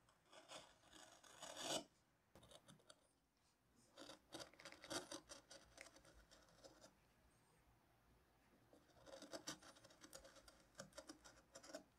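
Hand carving gouge slicing short cuts into a turned beech lampshade, each stroke a crisp scrape. The strokes come in three runs, one at the start, one around the middle and one near the end, with short pauses between.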